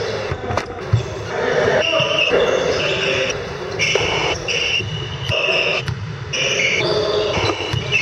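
Sneakers squeaking on a sports hall floor again and again during volleyball play, with a few sharp thuds of a ball in the first second.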